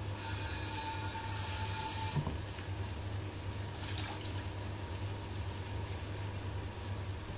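Pressure cooker on the gas hob letting off steam: a hiss with a steady whistling tone for about two seconds, over a steady low hum.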